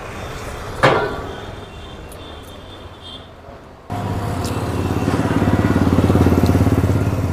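A motor-vehicle engine running close by, starting suddenly about four seconds in and holding a steady, fast-pulsing idle. Before it there is quieter background traffic noise and a sharp sound about a second in.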